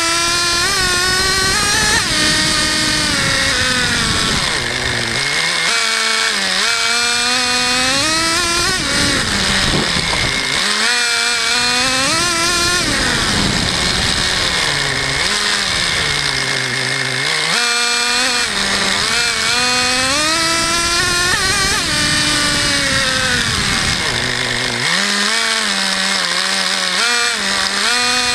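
Traxxas Jato 3.3's small two-stroke nitro engine revving up and down over and over as the RC car is driven, its pitch rising and falling every few seconds.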